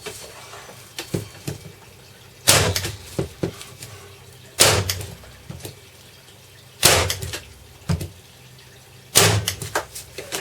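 Parkside PET 25 C2 electric stapler firing four times on its full power setting, about two seconds apart: each shot is a sharp snap, followed by a few lighter clicks as the tool is handled, driving the staple flush into the wood.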